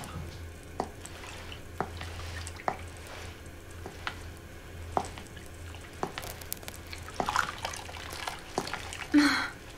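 Water dripping, single drops falling about once a second, over a steady low hum. Near the end comes a louder, longer splash-like sound.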